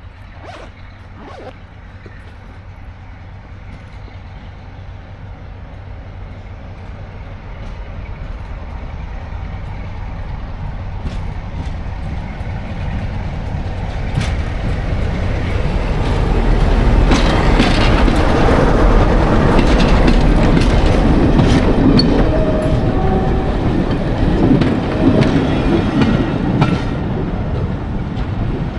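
Diesel train approaching and passing, growing steadily louder for about fifteen seconds, then running loud with the clatter of its wheels over the rail joints as it goes by.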